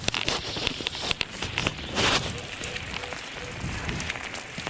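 Rain falling steadily, with many drops ticking on an umbrella held overhead, and a brief louder rush of rain about two seconds in.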